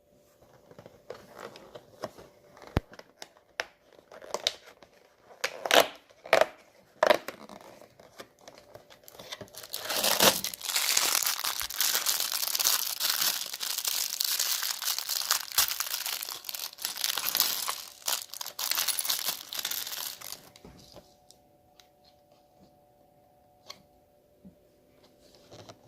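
Lego advent calendar packaging being handled and torn open: scattered crinkles and clicks at first, then about ten seconds of loud, continuous tearing and crinkling, after which the handling goes quiet.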